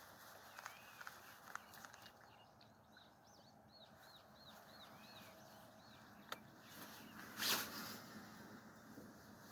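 Faint outdoor ambience. A bird repeats a short arched chirp about three times a second for a few seconds, with scattered clicks, and a brief noisy swish about seven and a half seconds in is the loudest sound.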